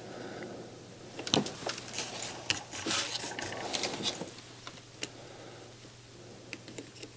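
Small sharp clicks, taps and brief scraping from hands and hand tools working on a receiver's power-supply circuit board, mostly in a busy stretch a second or so in, over a faint steady hum.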